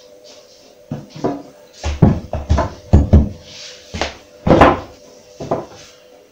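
Painted wooden cupboard front frame knocked and bumped as it is worked into place in an alcove: a run of a dozen or so wooden knocks and thumps, the loudest around the middle.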